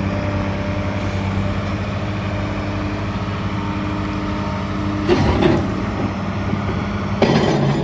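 Case CX330 excavator's diesel engine running steadily, with two short bursts of noise about two seconds apart near the end.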